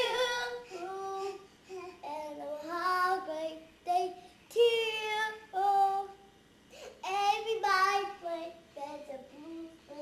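A young child's high voice singing in short, wavering phrases with brief pauses between them.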